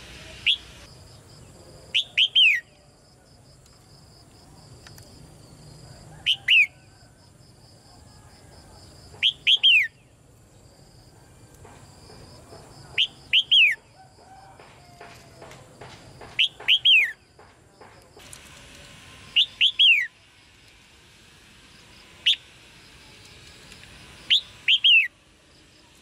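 Red-whiskered bulbul giving sharp chirping calls, each a quick group of two to four notes that drop quickly in pitch, repeated about every three seconds.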